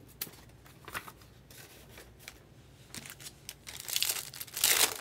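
Foil trading-card pack wrapper crinkling and tearing as it is handled and opened: a few faint crackles at first, then louder crinkling in the last second or so.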